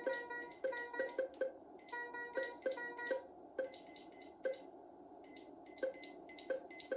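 Philips IntelliVue MP30 patient monitor alarm sounding: two bursts of chord-like beeps about two seconds apart. Short sharp blips come at irregular intervals throughout.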